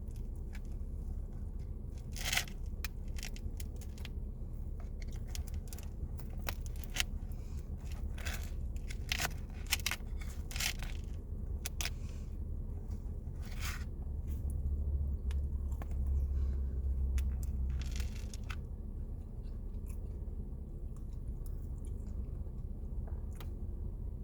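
Close-up chewing and biting of a cinnamon roll, with irregular wet smacks and soft crunches over a steady low rumble that swells for a few seconds in the latter half.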